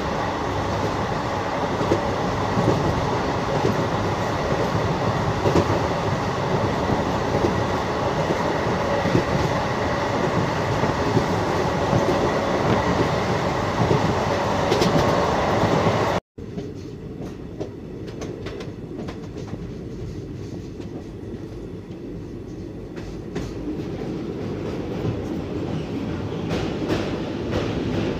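Passenger train running along the track, heard from an open coach doorway: a steady roar of wheels on rails with clattering knocks. About halfway through the sound drops out for an instant and comes back quieter and duller.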